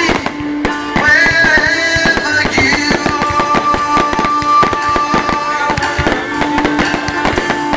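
Music from a fireworks display set to music, with many firework bursts banging and crackling throughout over its long held notes.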